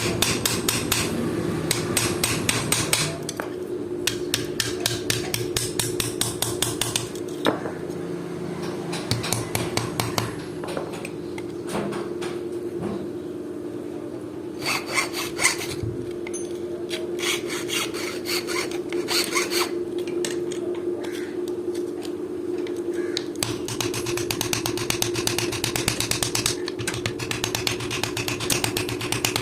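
Blacksmith's hammer striking steel on an anvil while forging a knife blade from an old file: quick runs of blows at the start and near the end, sparser strikes in between, with some rubbing or filing sounds. A steady hum runs underneath.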